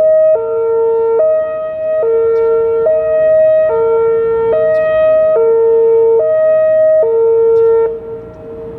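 Whelen WPS-2905 electronic outdoor warning siren sounding its loud hi-lo tone, two pitches taking turns a little under once a second, during its test. It stops about eight seconds in.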